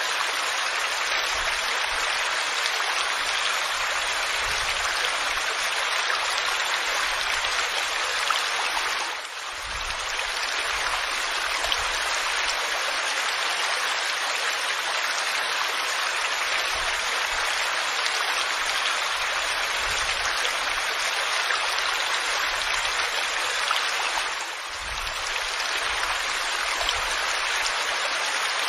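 Waterfall: a steady rush of falling water, dipping briefly in level twice, about nine seconds in and again near the end.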